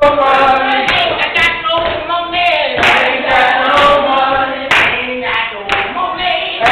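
A group of people singing together in held, gliding notes.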